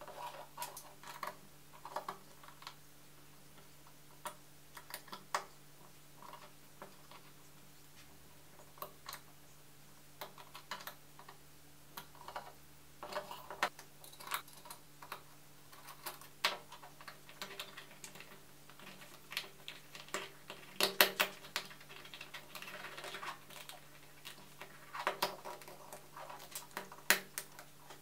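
Irregular clicks and taps of 3D-printed PLA plastic parts being handled, turned and fitted together on a wooden tabletop, with denser clusters of clacks about two-thirds of the way through and again near the end.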